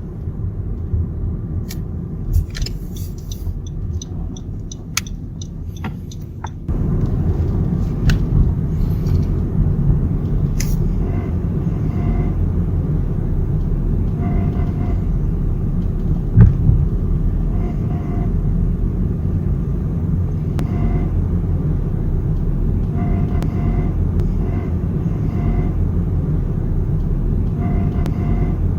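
Honda Civic driving slowly in a low gear, with road and running rumble and a rattle from the sway bar. Sharp clicks and rattles stand out in the first several seconds, then the rumble grows louder about seven seconds in and holds steady.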